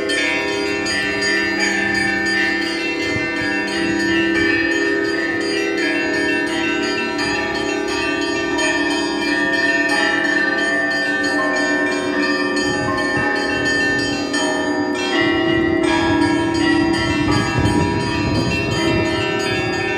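Orthodox church bells ringing a continuous festive Easter peal, many bells of different pitch struck over one another without a pause.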